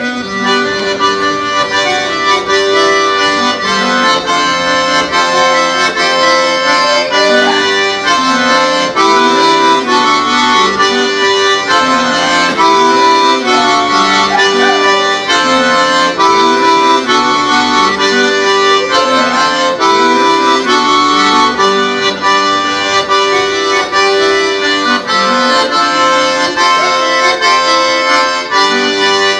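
Traditional Breton dance music: a repeating tune of held notes over a regular bass pulse.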